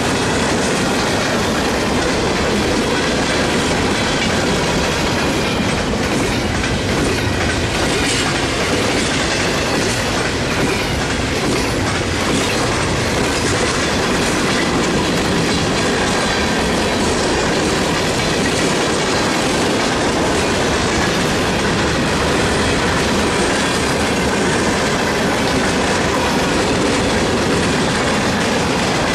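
Norfolk Southern manifest freight train's cars passing at speed: a steady, unbroken noise of steel wheels on rail as tank cars, boxcars and hoppers roll by.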